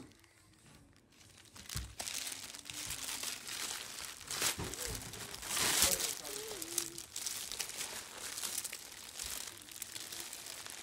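Plastic packaging crinkling and rustling as a plastic mailer bag is cut and torn open and the clear plastic wrap inside is handled. It starts about two seconds in and is loudest around the middle.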